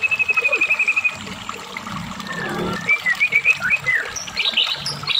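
White-rumped shama singing: a long, rapid trill of notes that slowly falls in pitch and stops about a second in, then after a short pause a phrase of quick varied whistled notes that climbs higher near the end.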